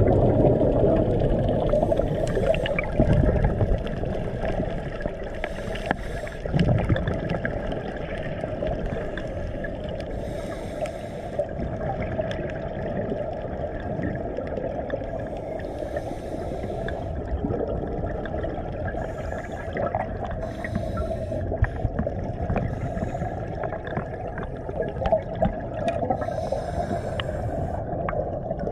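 Underwater sound of a scuba diver breathing through a regulator: a burst of exhaled bubbles about every four to five seconds over a steady low rumble of water.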